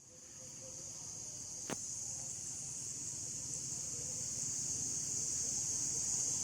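Steady high-pitched chorus of crickets, fading in over the first second, with a single sharp click about two seconds in.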